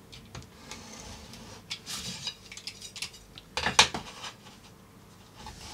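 Metal ruler handled on card over a wooden table: small taps and a scratchy pen stroke, then a loud clatter of knocks as the ruler is laid down about two-thirds of the way in, and another sharp knock at the end.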